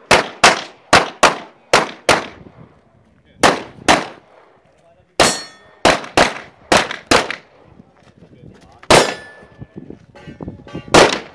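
Pistol fired in rapid strings of shots, about three a second, with short pauses between strings as the shooter moves between targets. A ringing metallic clang follows a shot about five seconds in and another about nine seconds in, typical of steel targets being hit.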